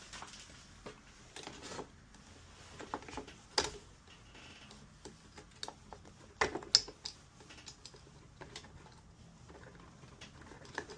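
Small plastic clicks and rattles of wire connectors being worked loose and unplugged from an espresso machine's control board, with a sharp snap about three and a half seconds in and two more about six and a half seconds in.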